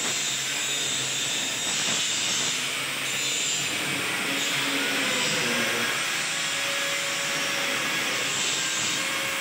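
Steady hiss of workshop machinery, with a faint hum that shifts in pitch now and then.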